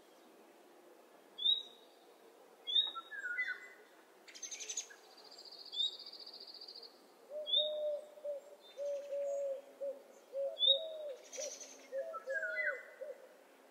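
Morning birdsong from several birds: short high chirps repeating every second or so, a brief high trill, and from about halfway a run of short low notes.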